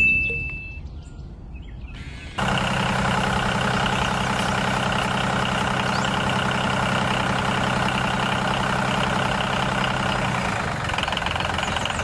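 Steady engine sound like a diesel tractor idling, cutting in abruptly about two and a half seconds in and running evenly after that. It is preceded by a short ringing tone that fades out at the start.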